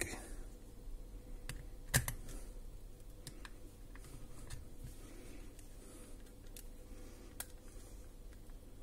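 Plastic casing of a small PMR walkie-talkie being fitted and pressed shut by hand: scattered light plastic clicks and taps, the loudest about two seconds in.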